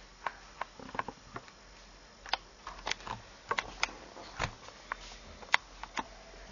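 Light, sharp clicks and taps, about fifteen of them at irregular intervals, with one louder click about two-thirds of the way through.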